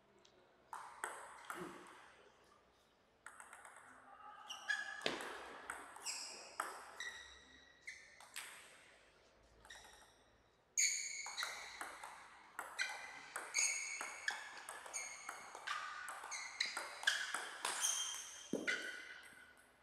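Celluloid-type table tennis ball pinging off the table and the rubber paddles: a few scattered bounces, then from about halfway through a fast rally of crisp clicks lasting about eight seconds.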